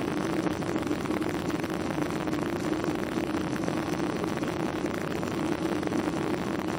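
Cabin noise inside a Boeing 737-800: a steady hum from the engines and airflow with an even hiss over it, unchanging throughout.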